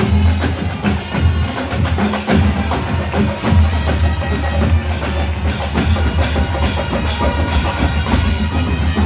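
Marching band playing, with drums and other percussion prominent over a heavy, steady bass.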